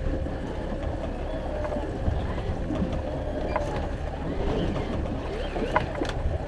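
Fishing boat's motor running steadily at trolling speed, a low rumble under water and wind noise, with a few sharp clicks and knocks.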